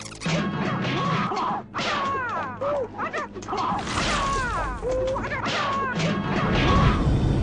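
Martial-arts film trailer soundtrack: music mixed with a quick run of hits and crashes from fight scenes.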